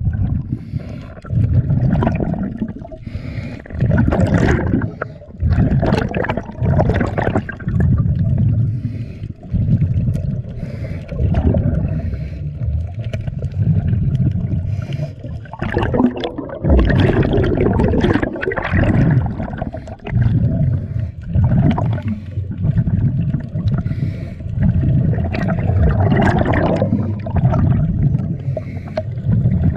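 Muffled underwater rumbling and bubbling as picked up by a submerged camera, surging irregularly every second or two with the diver's bubbles and water moving around the housing.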